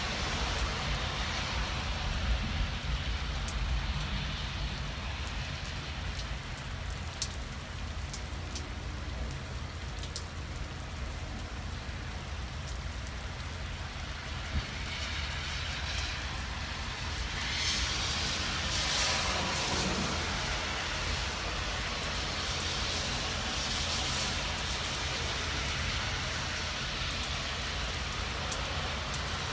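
Heavy rain falling steadily on wet pavement, with a constant low rumble underneath and scattered sharp drop clicks. About two-thirds of the way through, a vehicle swishes past on the wet road, swelling and fading away.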